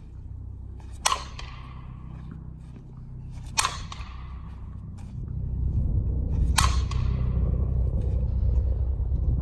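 Softball bat hitting pitched balls three times, each contact a sharp ping with a short ring, a few seconds apart. A low rumble grows louder in the second half.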